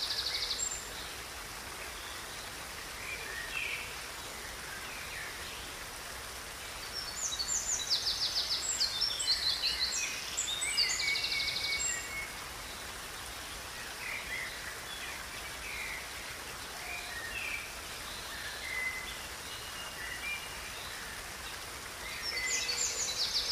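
Several wild birds singing and calling over the steady rush of a river. Bursts of rapid trilled song come about seven to twelve seconds in and again near the end, with scattered short chirps between.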